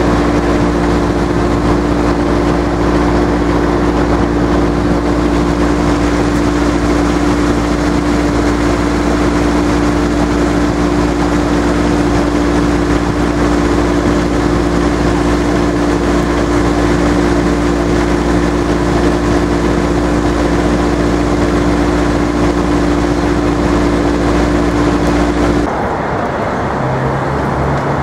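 A large engine running steadily: a loud, constant drone with a steady hum, cutting off abruptly near the end and leaving quieter street noise.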